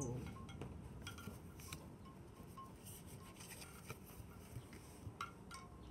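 Tarot cards being handled, with faint scattered clicks and light taps.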